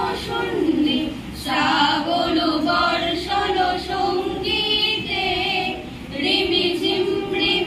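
A group of female voices singing a song together in unison, unaccompanied, in long held phrases.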